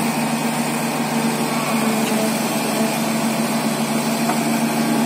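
Hydraulic excavator's diesel engine running with a steady, even hum while the machine moves a detached excavator arm and bucket.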